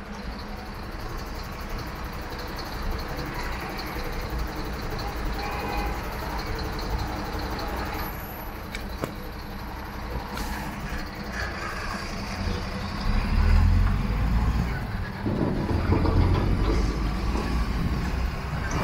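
Dump truck's diesel engine running as the truck moves slowly along the road. Its low rumble grows louder twice in the last third.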